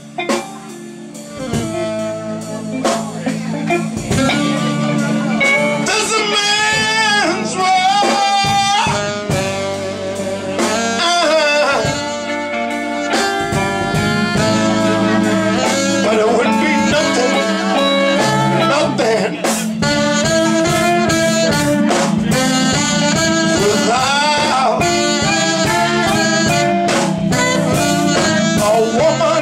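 Live soul-blues band performing: a male singer's voice held in long, bending notes over saxophone, bass and drums, the drum hits getting busier in the second half.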